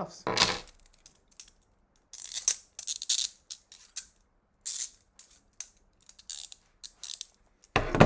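Hinged steel handcuffs being handled: a scattered series of sharp metallic clicks and rattles, some close together.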